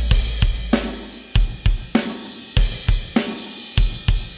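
Recorded drum kit playing a beat of kick and snare with hi-hat and cymbals, run through the Behringer X32's M/S Fair Compressor (a Fairchild 670 model) on the stereo bus. A low boom dies away over the first second or so, then the hits come about three a second.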